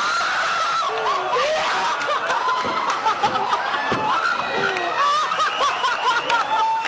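Several people laughing at once, loud and high-pitched, with short squeals and giggles overlapping.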